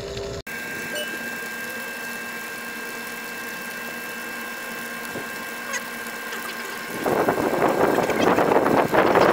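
Rule 500-gallon-per-hour electric bilge pump running steadily with a thin whine as it pumps water out of a kayak cockpit. The sound cuts out for an instant near the start. About seven seconds in, a louder rushing noise comes in and holds.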